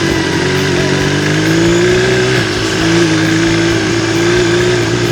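Motorcycle engine running at a steady cruising speed over a continuous rushing noise. The engine note wavers slightly and shifts a little about two and a half seconds in.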